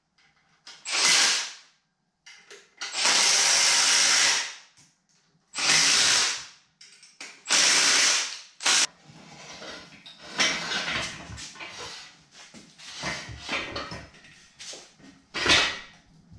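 Cordless drill run in repeated bursts of about a second each, driving a bolt into an engine stand. From about ten seconds in, the bursts give way to shorter, ragged clicking and clatter.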